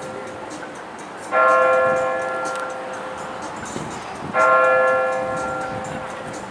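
Clock tower's electronic bell striking the hour: two strokes about three seconds apart, each ringing out and slowly fading, with the end of the previous stroke dying away at the start.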